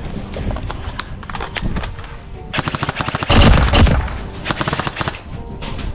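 Airsoft guns firing in rapid automatic bursts, a fast even rattle of shots, with the loudest and densest burst about three to four seconds in.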